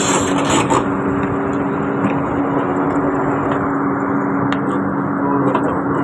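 Excavator's diesel engine running steadily with a low hum, with scattered light clicks.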